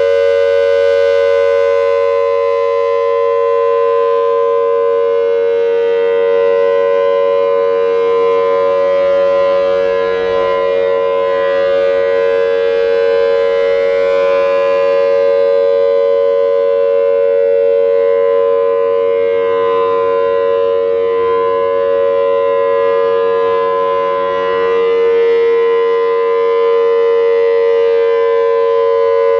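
Federal Signal Thunderbolt 1000T outdoor warning siren sounding a steady alert signal, holding one pitch. Its loudness dips slightly about every fourteen seconds as the horn rotates.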